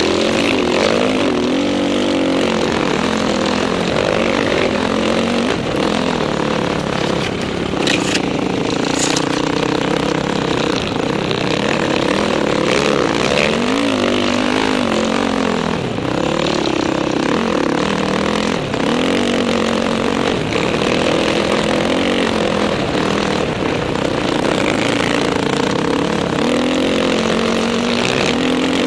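Dirt bike engine running hard up a sand dune, its pitch rising and falling with the throttle, over a steady rush of wind on the helmet camera.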